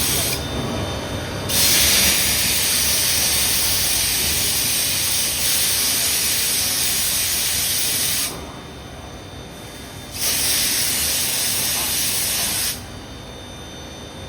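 Spray jet on a CNC milling machine hissing in three bursts: a short one at the start, a long one of about seven seconds, and another of about two and a half seconds near the end. Between the bursts a lower steady machine hum remains.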